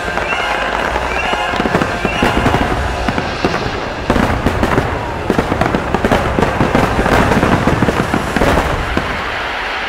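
Fireworks bursting in a dense barrage of booms and crackling pops, coming thickest from about four seconds in until near the end.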